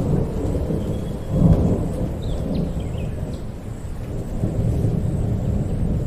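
Rainfall with a low rumble of thunder that swells about a second and a half in.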